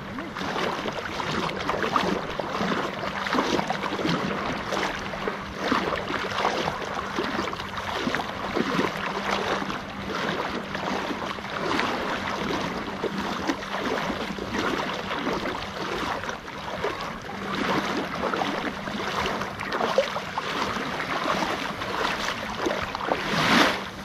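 Small sea waves splashing and washing close by: a continuous fizzing wash with frequent small splashes that swells louder near the end.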